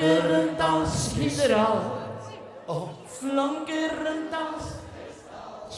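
Live schlager singing through a PA, the voice holding long notes and sliding between them.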